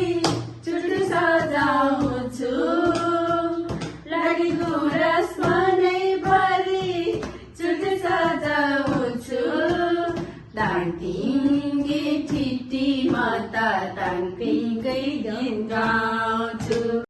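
Women's voices singing a Nepali folk song, a sustained sung melody with breaks between phrases.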